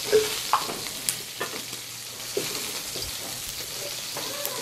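Pork rib pieces in oil and water and tomatillos browning, frying in pans on a gas stovetop: a steady sizzle with scattered small pops.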